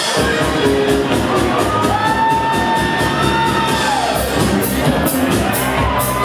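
Loud club dance music with a steady beat and a long held note near the middle, with some crowd shouts over it.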